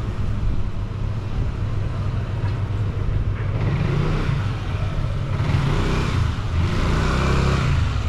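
A car passing in the street: its tyre and engine noise swells from about three seconds in and is loudest near the end, over a steady low rumble.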